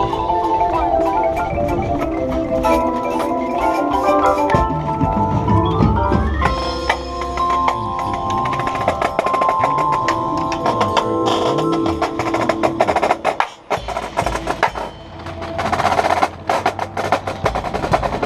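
Indoor drumline and front ensemble playing: mallet keyboards such as marimba sound sustained chords and runs, including a rising run about five seconds in, over sharp drum strikes. Near the end the music briefly drops away, then the drums come back with dense, rapid strikes.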